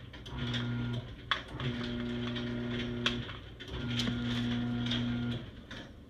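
Electric garage door opener motor humming in three short runs of one to two seconds, stopping and starting again, with sharp clicks between runs; the door is stuck.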